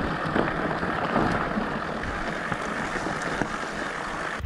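Steady noise of a mountain bike riding over a loose, rocky gravel track, with tyres crunching on stones, a few small knocks, and wind rushing on the handlebar-mounted microphone.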